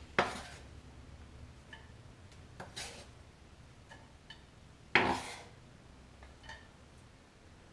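Kitchen knife scraping chopped red onion across a wooden cutting board and into a frying pan: a few short scrapes, the loudest about five seconds in, with light clicks between.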